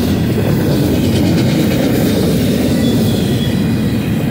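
Double-stack intermodal container well cars of a fast freight train rolling past at speed: a steady, loud rumble and rattle of steel wheels on the rail.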